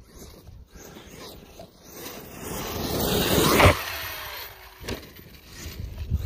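Brushless electric RC monster truck (Arrma Outcast 8S BLX) accelerating over grass, its motor and tyres growing louder for about a second and a half, then cutting off sharply as it leaves the ground. About a second later comes a single sharp thud as it lands, and it drives on.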